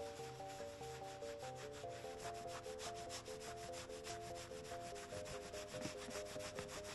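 A cloth rubbing metal polish back and forth over a sanded, plated steel sewing-machine bed plate in quick, even scrubbing strokes, about eight to ten a second.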